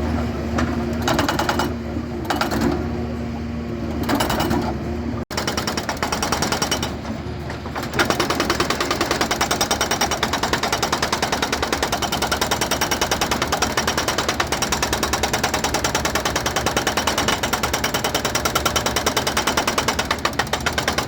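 Excavator engine running steadily for the first few seconds, then after a brief cut, a hydraulic breaker on the excavator hammering rock in a fast, even rhythm from about eight seconds on.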